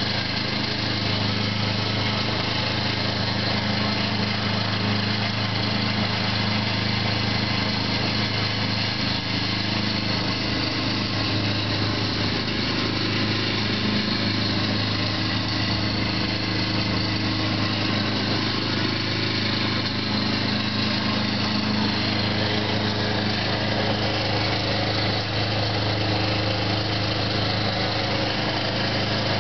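Lawn mower running steadily while mulching leaves, its engine holding one even pitch throughout.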